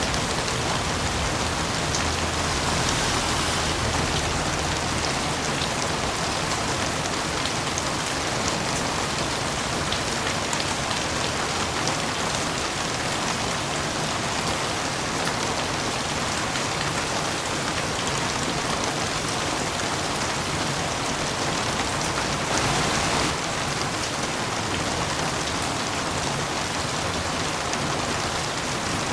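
Heavy rain falling on a roof: a steady, dense hiss of drops. It briefly grows louder about three-quarters of the way through.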